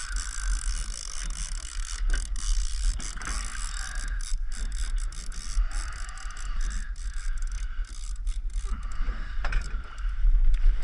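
Fishing reel being cranked steadily, its gears whirring and clicking as line is wound in on a hooked fish.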